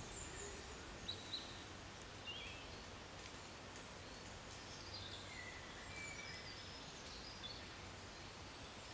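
Quiet woodland ambience with a few faint, scattered bird calls: short high chirps and whistles.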